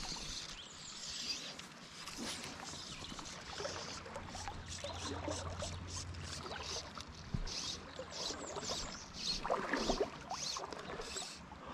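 Fly line being stripped in through the rod guides in quick short pulls, a rapid run of soft swishes, over faint lapping river water.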